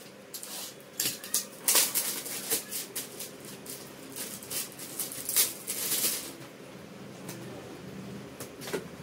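Clear plastic hook packets and a small cardboard box rustling and crinkling as they are handled and opened: a dense run of crackles that dies down after about six seconds into softer handling noise.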